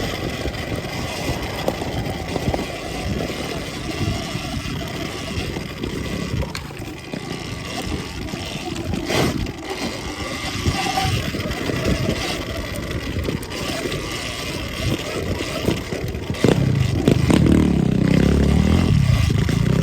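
Surron Ultra Bee electric dirt bike ridden over rough, rocky off-road ground: constant rattling and knocks from the tyres and chassis over a steady rushing noise, with a faint steady whine. A heavier low rumble comes in about three-quarters of the way through and stays to the end.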